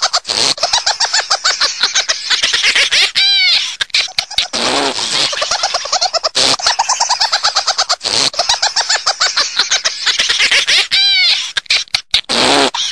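A high-pitched, rapid cackling laugh, sped up, with short squeaky sliding chirps in it. The same stretch plays again about every eight seconds, as a loop.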